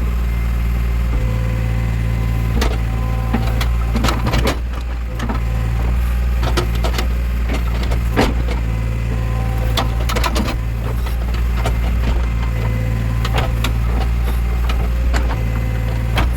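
Backhoe loader's diesel engine running steadily under load, with irregular knocks and clatters from the digging gear as it scrapes grass and mud out of a canal.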